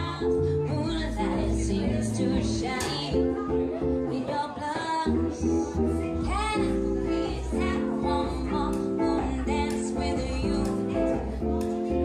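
Live small band: a woman singing a melody into a microphone over a plucked upright double bass and an archtop electric guitar.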